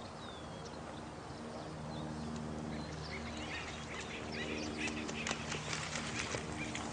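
Birds calling in short chirps over a steady low hum, the calls and sharp clicks growing busier in the second half.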